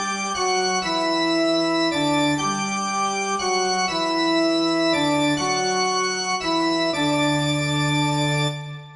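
Organ playing a slow run of sustained chords that change about twice a second, ending on a long held chord that fades out near the end.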